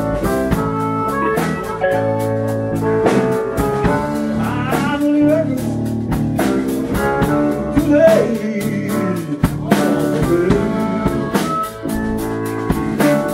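Live blues band playing, with drums, bass, organ and blues harmonica; the harmonica plays bending notes.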